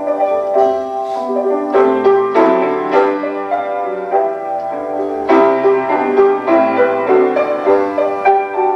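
Piano music: notes and chords struck in a steady, flowing stream.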